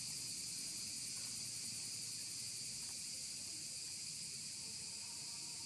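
Steady, high-pitched chorus of insects droning without a break.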